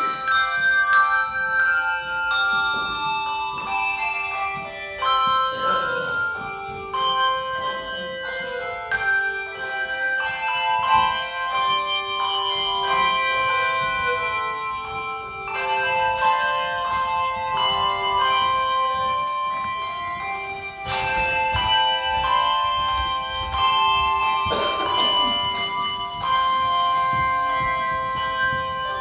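Handbell choir playing an anthem: struck handbells ringing in overlapping chords and a moving melody, each note sustaining and slowly fading under the next.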